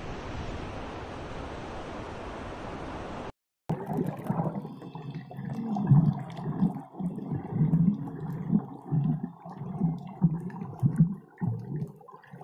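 Steady wind and surf noise for about three seconds, then, after a brief dropout, underwater water sounds: irregular low gurgling and bubbling pulses.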